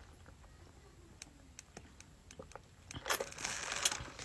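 Paper food wrapper crinkling in irregular bursts as it is handled, starting about three seconds in, after a few faint clicks.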